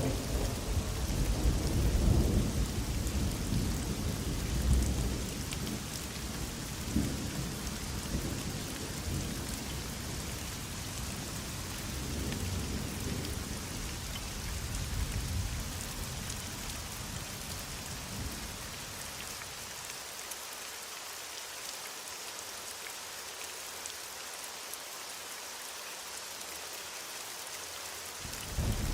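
Heavy rain falling steadily, with rolling thunder rumbling through the first half and dying away. A fresh roll of thunder starts right at the end.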